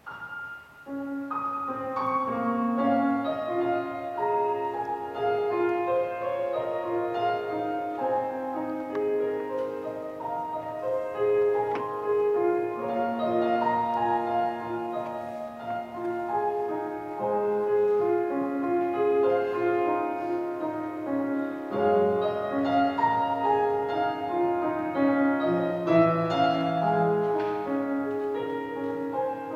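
Solo grand piano played live, a piece beginning at the start with many quick, flowing notes over held lower notes.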